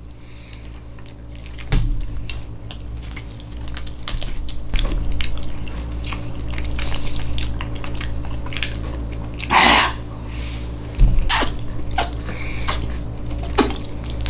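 Close-miked chewing of soft canned Spam: wet mouth clicks and lip smacks, with a louder mouth noise near the middle, over a steady low hum.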